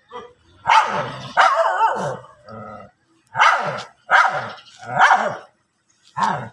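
Dogs barking angrily at one another in a standoff: a run of about seven harsh barks, one about a second and a half in drawn out with a wavering pitch.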